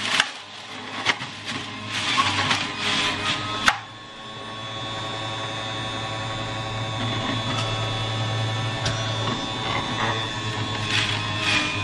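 Philips centrifugal juicer running: its motor whirs and grinds with sharp clicks as produce is pushed down the feed tube for the first few seconds, then spins steadily and more lightly with nothing being fed. Grinding picks up again near the end.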